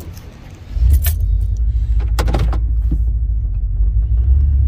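Car engine comes on about a second in and then runs with a steady low rumble, heard from inside the car, with a few light clicks and key jingles on top.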